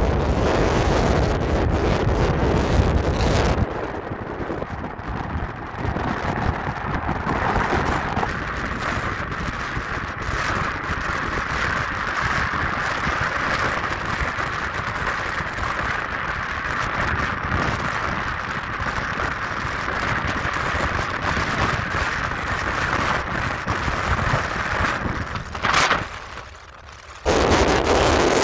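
Steady road and wind noise of a moving car heard from inside. Wind rumbles heavily on the microphone for the first few seconds and again near the end, and the noise drops sharply for about a second shortly before that.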